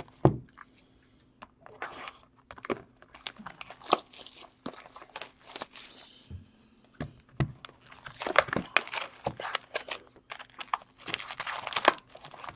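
Plastic wrapping being torn and crinkled by hand as hockey card boxes and packs are opened: a run of irregular crackles and rips.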